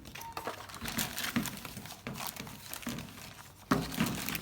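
Packaging and paper being handled: irregular crinkling and rustling with scattered small clicks, and a louder knock near the end.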